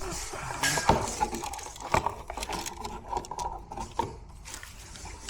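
Light handling and work noise in a small room: a couple of sharp knocks, about one and two seconds in, amid soft rustling and clicks.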